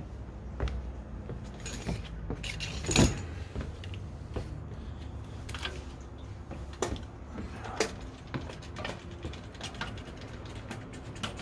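Scattered knocks, clicks and light rattles of a person moving about and getting onto a bicycle, with one sharp knock about three seconds in, over a faint low steady hum.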